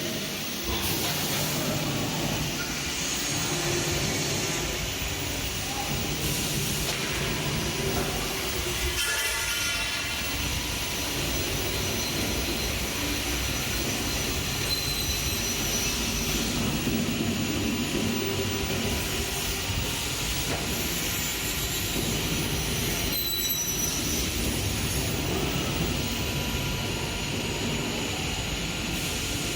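Samach 2800E CNC panel saw running in a workshop: a steady mechanical noise with thin, high whining tones that come and go. There is a brief change in the sound about nine seconds in and a short dip a little past twenty-three seconds.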